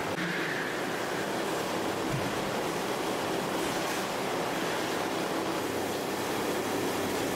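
Steady rushing noise of running fish-processing machinery in a processing hall, with no clear rhythm or distinct knocks.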